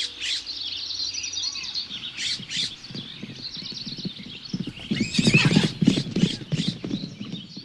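Birds chirping, then a horse whinnying about five seconds in, with hooves clopping.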